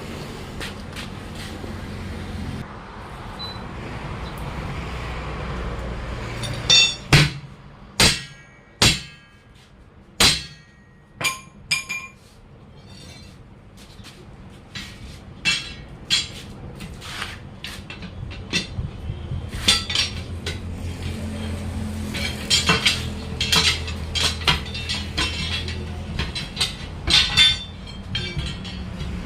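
Hammer blows on a steel truck wheel rim during a tyre change: about six hard, ringing metal strikes between roughly seven and twelve seconds in, then a long run of lighter, quicker metallic clinks. A low steady hum runs under the start and again under the later clinks.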